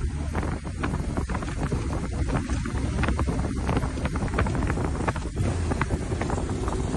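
Wind buffeting the microphone of a moving motorcycle, over the low steady hum of its engine.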